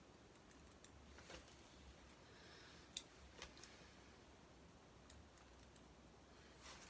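Near silence: room tone, with a few faint, short clicks, the sharpest about three seconds in.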